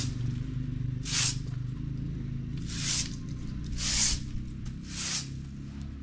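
Long-handled broom sweeping brick paving, four separate swishing strokes about a second apart.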